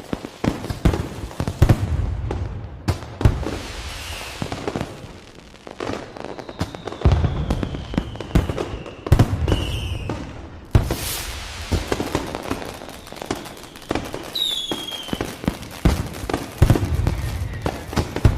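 Fireworks going off in quick succession: deep booms and sharp cracks with crackling between them, and a few whistling tones that fall in pitch.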